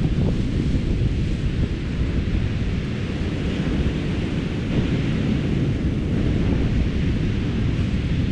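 Wind buffeting the microphone: a steady, deep rumble of noise with no break through the whole stretch.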